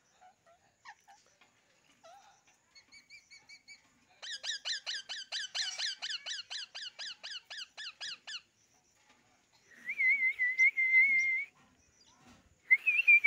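Pet parakeet calling and whistling. After a few faint chirps, it gives a quick run of about twenty short, falling squeaky notes, about five a second. Later comes a warbling whistle held about a second and a half, and a shorter whistle near the end.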